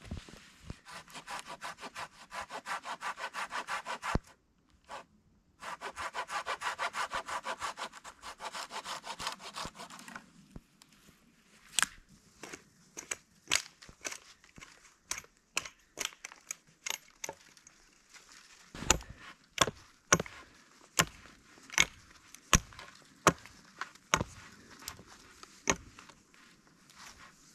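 A hand saw cutting through a wooden pole in quick, even strokes, in two runs with a short pause between. From about eleven seconds in it gives way to a string of sharp hatchet knocks as side branches are trimmed off a pole, the loudest near the end.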